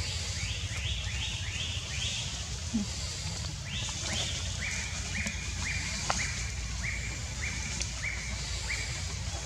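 A bird calling repeatedly: a few quick notes sliding down in pitch, then a run of short, evenly spaced notes at about two a second, over a steady low rumble.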